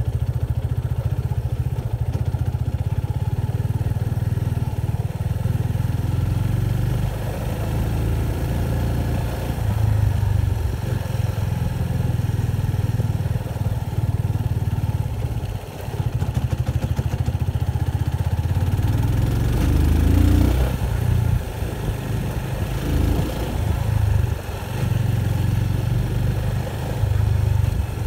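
Motorcycle being ridden, its engine running under a heavy low rumble, with a brief rising rev about twenty seconds in.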